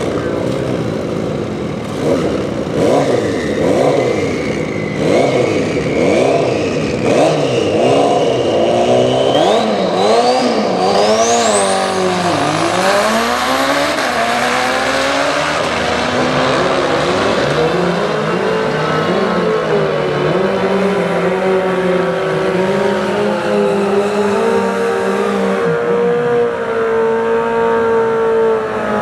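Two motorcycles, a Suzuki dual-sport dirt bike and a sport street bike, revving in short bursts about once a second on a drag-strip start line, then launching and accelerating hard, with engine pitch climbing steeply. Engine noise continues after that, later settling into steadier tones.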